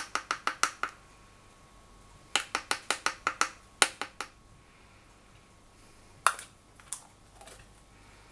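Metal measuring spoon tapped quickly against the rim of a plastic canister of baking powder, in two short runs of light clicks, then a few single knocks.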